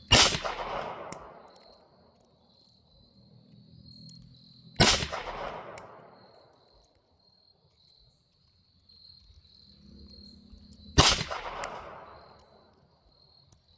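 Three shots from a Taurus TX22 Competition .22 LR pistol, one at the start, one about five seconds in and one about eleven seconds in, each followed by an echo dying away over a second or so, with no ring from the steel target: the shots miss. Crickets chirr steadily at a high pitch throughout.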